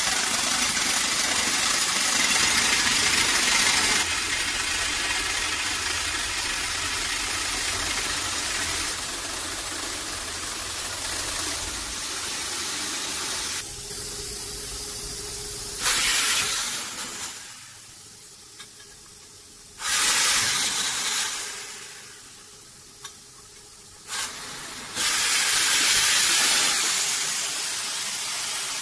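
Boom-mounted drill rig driving a hollow soil-nail bar into a slope, heard as a steady loud hiss. The hiss drops away twice in the second half and comes back each time in sudden loud bursts.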